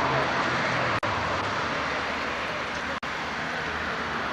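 Steady background noise with a faint low hum, cut by two brief dropouts in the sound.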